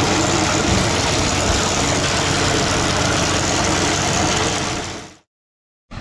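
A heavy farm machine's engine running steadily and loudly. It fades out about five seconds in.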